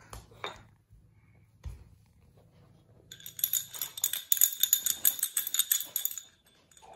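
Bell inside a small plastic cat-toy ball jingling rapidly as it is shaken by hand, starting about three seconds in and stopping a little after six seconds.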